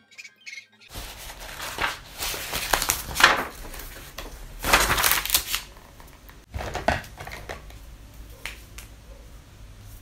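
Crinkling and rustling with sharp clicks, coming in several loud bursts, like objects being handled.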